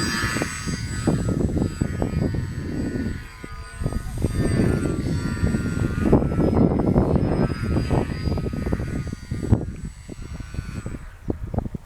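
Small electric RC model plane's motor and propeller whining steadily at high throttle, then dropping out near the end. Strong wind buffets the microphone throughout.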